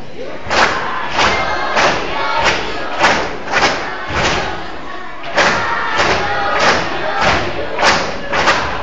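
A steady beat of sharp knocks, about three every two seconds and breaking off for about a second midway, over a crowd of voices and some music.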